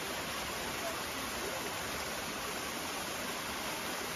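Steady rushing hiss of a small waterfall cascading down a rocky ravine, even and unbroken.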